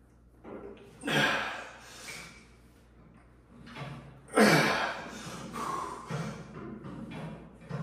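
A man breathing hard through incline dumbbell presses, with a sharp exhale about once a rep. The loudest breath comes a little over four seconds in.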